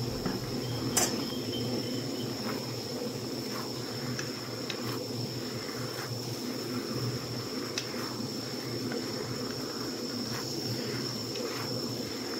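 Shrimp and broccoli being stir-fried in a pan, with a dozen short clinks of the utensil against the pan, the loudest about a second in, over a steady low rush. A steady high-pitched insect drone runs underneath.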